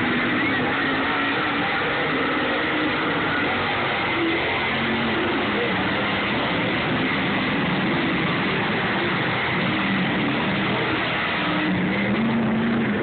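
Engines of dirt-track stock cars running around a dirt oval, their pitch rising and falling as the cars accelerate and pass, over a steady wash of noise.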